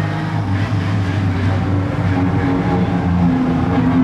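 Škoda Fabia Rally2 rally car's engine running at low revs as the car drives slowly. It sounds uneven at first, then holds a steady note.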